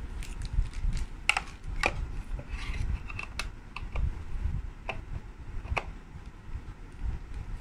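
Hard plastic clicking and tapping as a plastic Hello Kitty bucket and its red plastic lid piece are handled and moved, with a dozen or so sharp clicks at irregular intervals.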